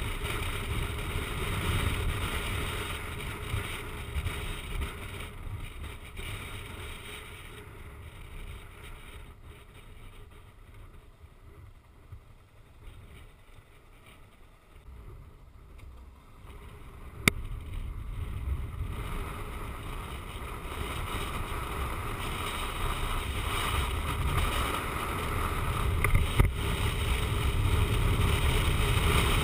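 Wind rushing over a motorcycle-mounted camera, with road noise, while riding. It dies down as the bike slows and stops midway, a single sharp click comes a few seconds later, and the rush builds again as the bike picks up speed.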